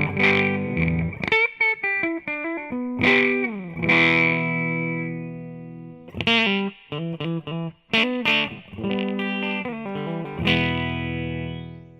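Electric guitar through a fuzz pedal (an Arcane Analog clone of the Earth Sound Research Graphic Fuzz) and a Fender Hot Rod Deluxe amp, playing fuzzed single notes and short phrases with a resonant filter tone on top of the fuzz. A few notes slide down in pitch, and a long note rings and fades near the end.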